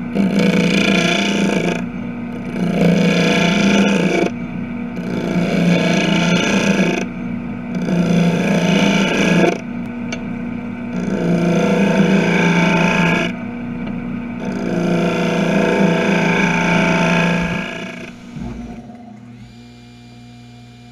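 Wood lathe running with a steady hum while a handheld turning tool cuts into the spinning disc in six passes of about two seconds each, the cutting noise stopping briefly between passes. The cutting ends a few seconds before the end, leaving a quieter hum.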